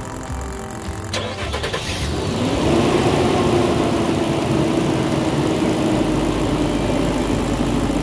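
Car engine cranked and started about a second in, rising in pitch and settling into a steady fast idle over a portable 12-volt air compressor inflating a tire. The engine is running so the compressor gets more power and pumps faster.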